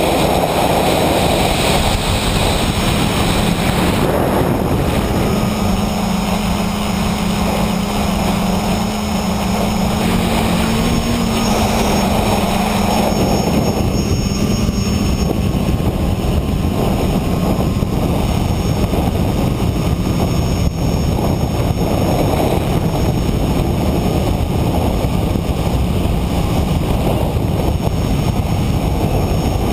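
Tricopter's three electric motors and propellers running in flight, heard from the camera on board: a loud, steady rushing drone over a motor hum that rises slightly in pitch about eleven seconds in.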